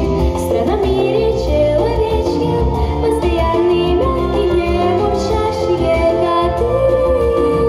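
A girl singing a song into a handheld microphone over instrumental accompaniment with a low, steady beat.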